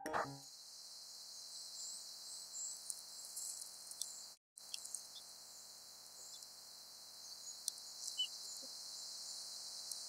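Faint outdoor ambience: a steady high hiss with scattered faint high chirps and ticks, after a music chime dies away at the very start. The sound drops out for a moment a little before halfway through.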